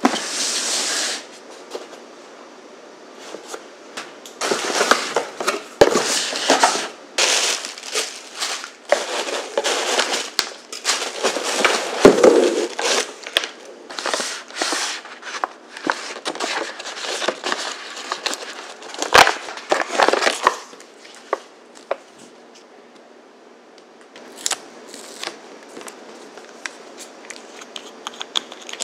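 Cardboard boxes and a kraft paper bag being opened and handled by hand: paper crinkling and tearing with sharp taps and clicks. The handling is busiest for most of the stretch and thins to a few light taps for the last several seconds.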